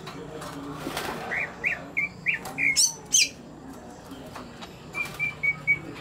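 Caged greater green leafbird (cucak ijo) calling: a quick run of short, rising whistled notes, then a few higher falling notes, and near the end four short level notes. A brief flutter of wings about a second in.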